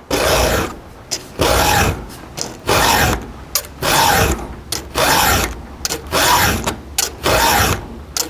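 A chainsaw file rasping across a chain's cutter tooth in the gullet in repeated push strokes, about one a second, sharpening the tooth.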